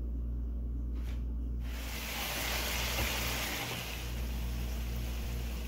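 Pork adobo pieces sizzling in a frying pan as they brown, a hiss that comes in about a second and a half in, over a steady low hum.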